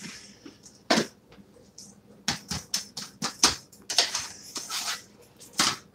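Spatula clicking and scraping against a frying pan as a pancake is worked loose and turned: a run of sharp taps, with a longer scrape about four seconds in.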